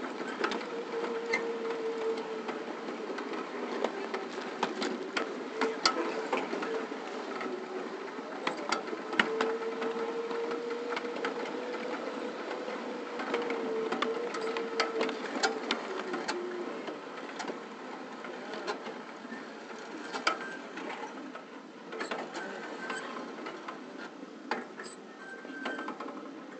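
A 7.5-inch-gauge ridable backyard train running slowly along the track: rapid, uneven clicking and clatter of wheels over the rails, with a steady, slowly wavering whine that stops about sixteen seconds in.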